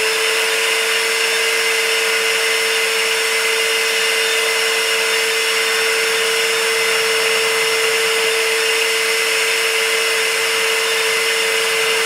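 MacAllister 30-litre 1400 W wet-and-dry vacuum cleaner's motor running at full speed in blower mode, a loud steady whine with the rush of air from the hose.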